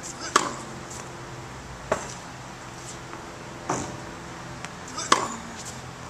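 Tennis balls hit with a racket and bouncing on a hard court: four sharp pops spaced roughly one and a half to two seconds apart, over a steady low hum.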